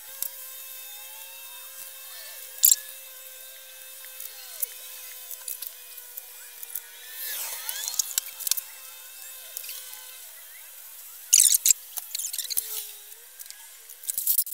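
Hand trigger spray bottle of cleaner giving a few short squirts a few seconds apart, over a faint steady high whine.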